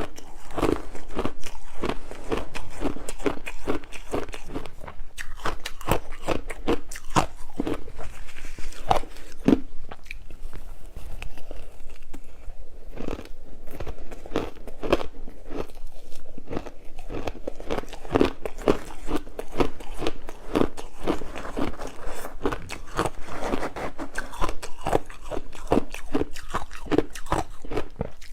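A person biting and chewing frozen matcha ice, close to the microphone: a dense, continuous run of crisp crunches.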